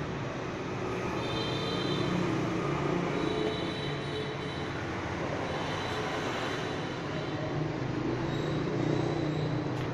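Granite-cutting machine running steadily: a continuous mechanical din with a low motor hum and a faint high whine that comes and goes.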